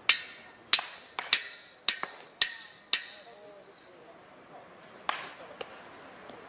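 Baseball bats hitting balls in tee and soft-toss batting practice: a quick run of sharp cracks, about eight in the first three seconds, each with a short ringing tail, then two more about five seconds in.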